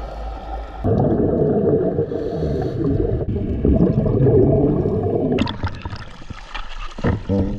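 Muffled underwater rumble of scuba exhaust bubbles rising around an ascending diver. A little over five seconds in, the sound turns to splashing and dripping water as the diver breaks the surface at the boat's dive ladder.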